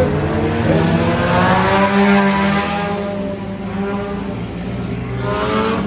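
Stock car engines racing on a dirt oval, several cars going by at once, their engine notes swelling and falling as they pass.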